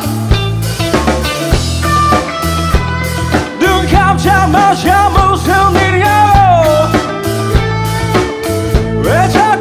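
Rock band playing live: a lead electric guitar line with bent, sliding notes over drum kit and bass guitar.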